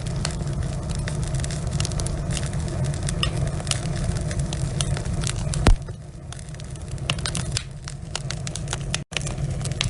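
Wood logs burning in a fireplace, crackling with many sharp pops over a steady low rumble. One loud pop comes a little past halfway, after which the rumble is quieter for a few seconds, and the sound cuts out for an instant near the end.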